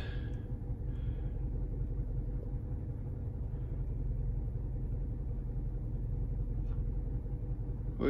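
A Toyota Corolla's 1.8-litre four-cylinder engine running with a steady low rumble, heard from inside the cabin, while it misfires on all four cylinders.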